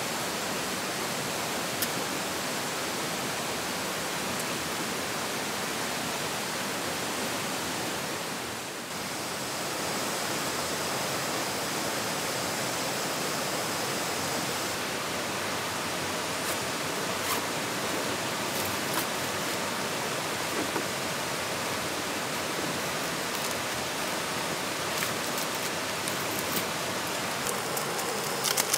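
Steady rushing of a shallow rocky stream, with a short dip about nine seconds in and a few faint clicks later on.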